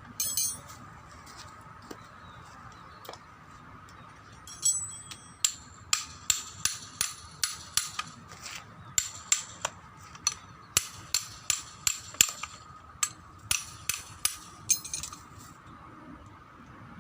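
Hammer striking metal parts of a brush cutter: a run of sharp metallic blows, about three a second in short groups, starting a few seconds in and stopping near the end.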